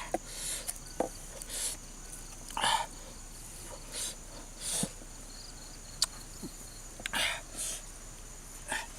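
Steady high-pitched drone of insects, broken every second or two by short rustles and sharp clicks from handling.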